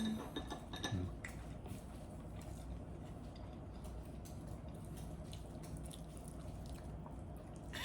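Faint chewing and mouth sounds of someone eating ramen noodles, soft scattered clicks, with a couple of light knocks in the first second, over a low steady hum.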